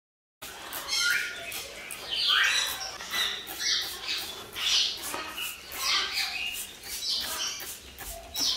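Pet parrots calling, with short squawks and chirps coming about one or two a second, some sweeping up or down in pitch. The calls start abruptly about half a second in.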